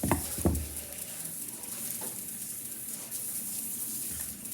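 Plastic packaging crinkling and rustling as hands struggle to tear it open, with two short knocks in the first half-second.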